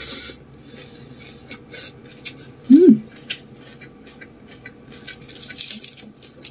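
Close-miked eating of fried rice vermicelli: a noodle slurp at the start, then scattered wet chewing clicks and smacks. About halfway through comes a short, loud hummed 'mm' that rises and falls in pitch. Near the end there is a rustling as fingers pick through the noodles.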